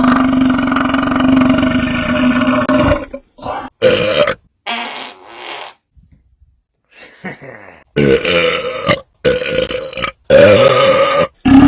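A run of loud belches: one long, steady-pitched belch lasting about three seconds, then a few short ones and a quiet gap, then several loud belches in quick succession near the end.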